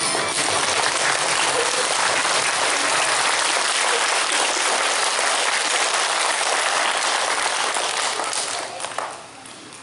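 Audience applauding steadily for about nine seconds, then dying away with a few last scattered claps near the end.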